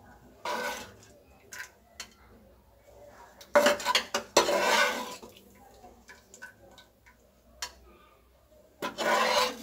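A metal slotted spoon scraping and clinking against a non-stick pan as papaya cubes are scooped out of sugar syrup, with sharp clicks as it knocks on the edges. It comes in three scraping bursts, the longest and loudest in the middle.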